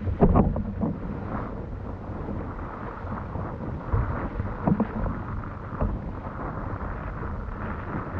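Wind buffeting the microphone with a steady low rumble and rushing water noise from windfoiling, with a few brief louder knocks in the middle.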